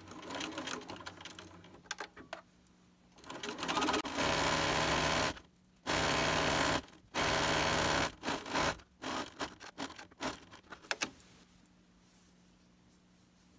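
Domestic sewing machine edge-stitching a folded hem in knit fabric: a few short bursts, then three runs of about a second each with brief stops between, then more short bursts that end about 11 seconds in.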